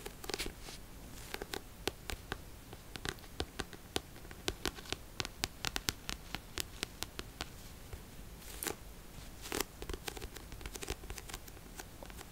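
Long fingernails tapping and scratching on the cover of a paperback book: quick, irregular clicks, thickest in the middle, with a couple of longer scratches about eight and nine and a half seconds in.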